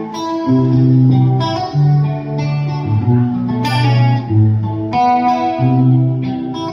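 Instrumental intro of a slow ballad: guitar chords ringing over a bass line, changing every second or so, with no singing yet.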